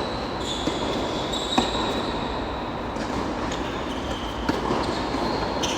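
Tennis ball struck by rackets and bouncing on the court: a few sharp knocks a second or so apart, the loudest about a second and a half in, over a steady background hum with high steady tones.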